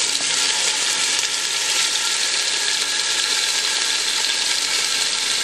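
Raw ground turkey frying in hot oil in a stainless steel pot: a steady sizzle.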